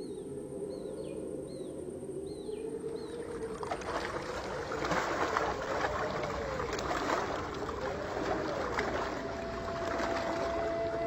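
Rushing, splashing river water swirling against a rocky bank, coming in about three and a half seconds in. Under it runs a low tone that slowly rises and falls, and early on a bird gives short falling calls again and again.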